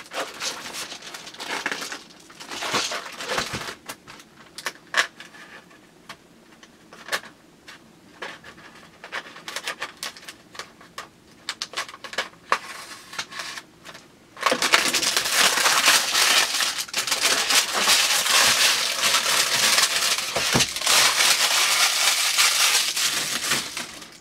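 Handling of unboxing packaging: scattered clicks, taps and short rustles, then from about halfway on, continuous loud crinkling and crackling of plastic packaging being worked open.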